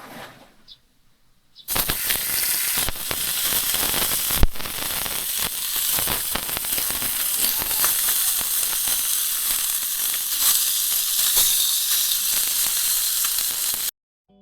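Food sizzling and crackling as it cooks: a steady hiss full of small pops. It starts abruptly about two seconds in and cuts off suddenly near the end.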